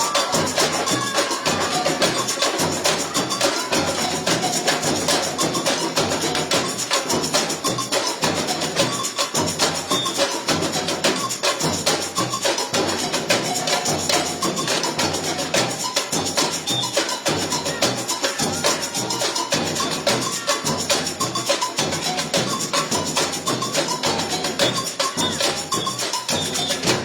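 A samba bateria playing at full tilt: deep bass drums pulsing on a steady beat under a dense, fast layer of snare drums and small hand percussion.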